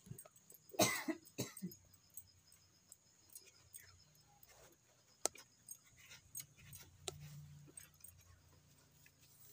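Cow being hand-milked: faint, irregular spurts and ticks of milk streams hitting the vessel, with one loud, harsh, cough-like burst about a second in.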